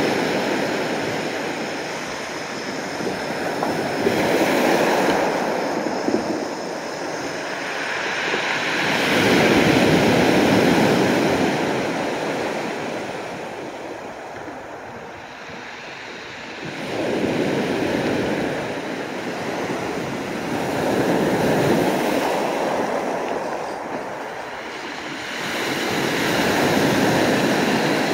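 Sea waves breaking and washing up and back over a pebble beach, the surf swelling and fading every few seconds.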